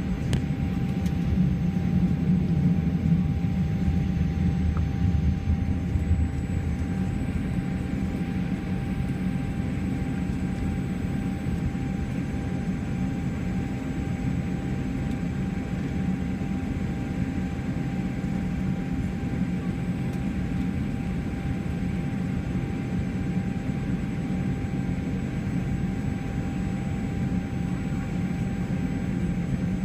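Cabin noise of a Boeing 787 Dreamliner taxiing: a steady low rumble from the idling engines and rolling airframe, with a thin steady whine above it. The rumble is a little heavier for the first few seconds, then settles.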